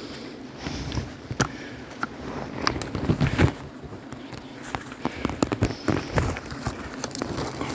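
Irregular cracking and rustling of dry brush and twigs, with sharp snaps clustered about three seconds in and again near six seconds.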